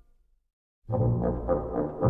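Soundtrack music: a short silence, then brass-led music starts abruptly about a second in with a steady pulsing beat.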